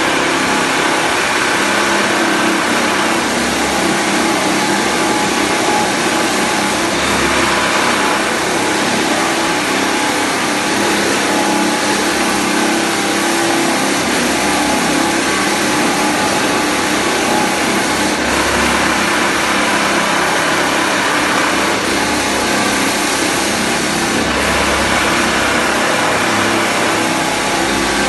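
Electric walk-behind floor sander running steadily, its abrasive sanding a wooden parquet floor; a continuous, even noise.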